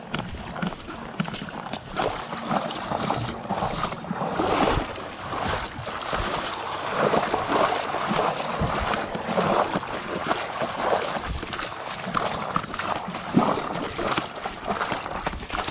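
Small waves lapping and sloshing against seaweed-covered rocks and sand at the water's edge, in irregular splashy surges.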